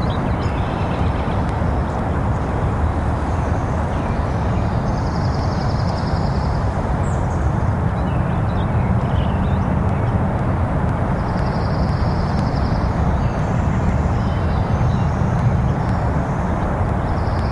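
Steady low outdoor background rumble, with a faint high trill repeating every five to six seconds.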